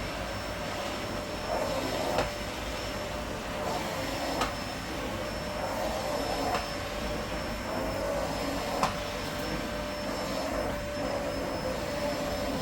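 Vacuum cleaner running steadily with a constant motor whine, and a few brief knocks spread through.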